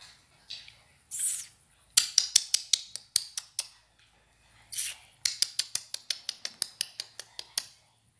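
Two quick runs of sharp, crisp clicks, about six a second, each lasting a second or two, with a short hiss just before each run.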